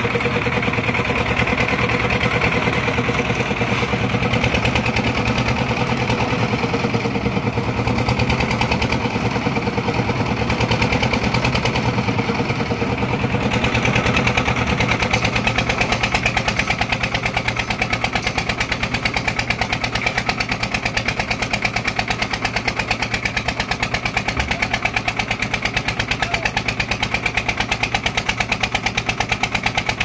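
Diesel engine of a lift concrete mixer machine running steadily under load, with a rapid, even beat of firing strokes. A wavering hum in the middle range fades about halfway through.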